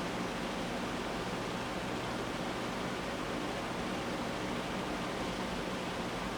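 Steady, even background hiss with a faint low hum. Nothing else happens.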